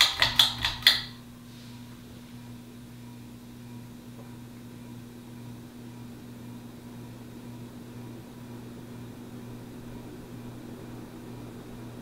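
Pull chain of an Encon Imperial ceiling fan tugged: a quick run of about six sharp clicks and rattles in the first second. Then the fan motor hums steadily under the spinning blades, the sound slowly getting a little louder.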